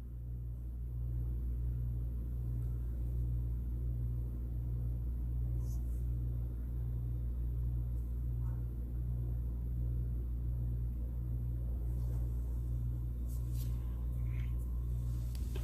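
Magnetic stirrer in a Corning stirring hot plate running, with its stir bar turning in a small beaker: a steady low hum with a slow, even pulse, with a faint click or two as the speed knob is turned up.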